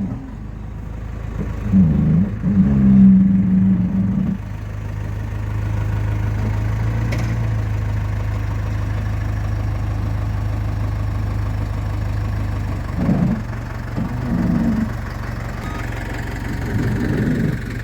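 Engine idling steadily, with louder wavering sounds over it early on and again in the last few seconds.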